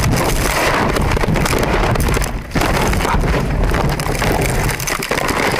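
Loud rushing and clattering of a car crashing off the road, heard from inside the cabin as the car tumbles through roadside brush, with many knocks and bangs. The noise drops briefly about two and a half seconds in, then a sudden loud hit.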